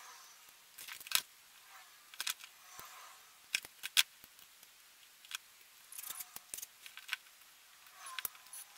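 Scattered light clicks and taps of hands handling a cordless drill and small fittings on a wooden table top, with a sharper knock about four seconds in.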